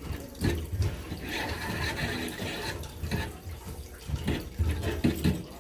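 A spoon stirring a wet rice mixture in broth in a cooking dish: liquid sloshing, with irregular knocks of the spoon against the dish.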